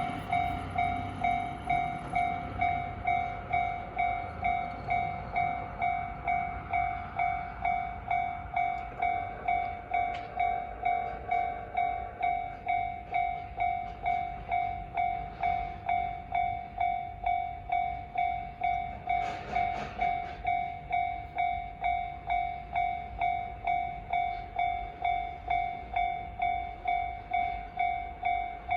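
Japanese railway level-crossing warning bell, the standard JR electronic crossing tone, ringing in an even, repeating ding of about three strikes every two seconds, each fading quickly. It signals that the crossing is closed for an approaching train.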